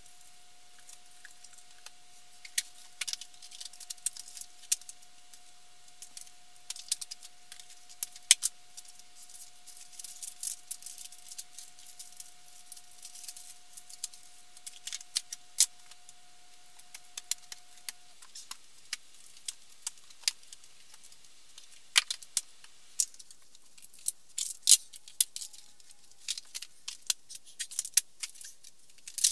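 Books and small objects handled, stacked and set on shelves: many irregular sharp clicks, taps and knocks. A faint steady thin whine runs underneath and stops about two-thirds of the way through.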